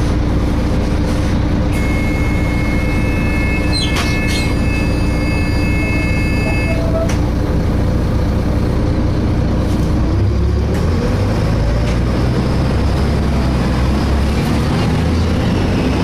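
A Volvo B7LA articulated bus's diesel engine idles steadily, then rises in pitch from about ten seconds in as the bus pulls away. For about five seconds early on a high, steady screech sounds over it, with a few sharp clicks partway through.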